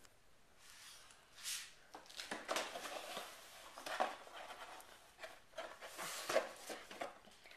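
A Yorkshire terrier wriggling and rolling on a small fabric rug, then scrambling to its feet. Fur and paws make irregular rustling and soft scuffing against the rug, with a short hiss about a second and a half in.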